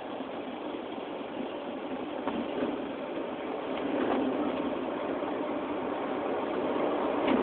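An engine running steadily, a dense mid-range rumble that slowly grows louder, with a few faint clicks.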